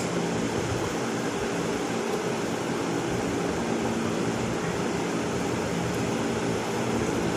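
A machine running with a steady hum made of several constant low tones over an even whooshing noise.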